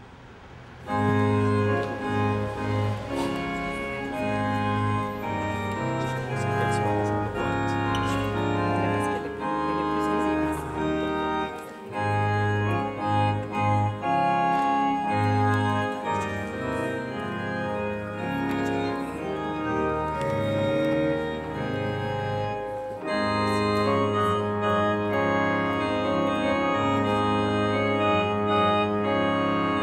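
Organ music: sustained chords with a moving melody, starting about a second in.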